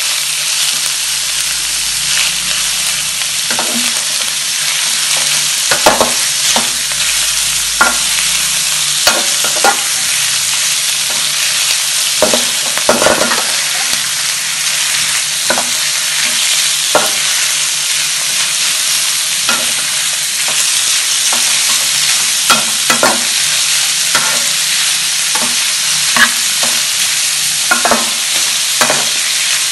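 Sliced cow tongue, shallots and chillies stir-frying in a metal wok: a steady sizzle, with the metal ladle scraping and knocking against the pan at irregular moments every second or two.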